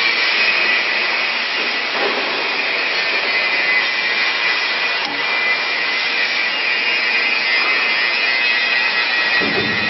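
Steady, loud machinery noise with a high whine, as from industrial sheet-metal plant running. A short low knock comes near the end.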